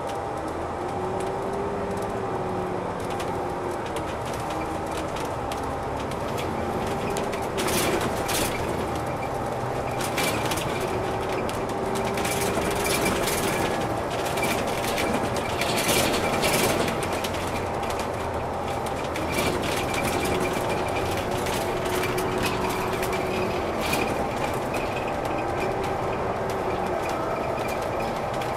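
Alexander Dennis Enviro500 double-decker bus underway, heard from inside the upper deck: steady engine and road noise with a whine that rises and falls again and again, and occasional knocks and rattles from the body.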